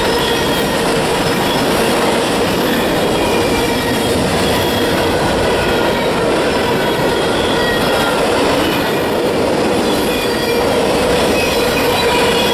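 Freight cars rolling past close by: a steady, loud rumble of steel wheels on rail, with thin high squealing tones from the wheels coming and going.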